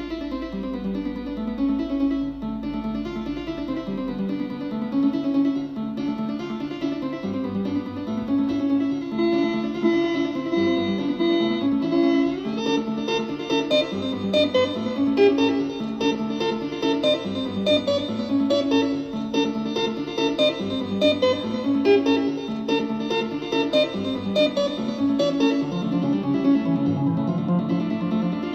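Instrumental music led by plucked guitar, a run of quick changing notes over a low bass line; it grows fuller about twelve seconds in.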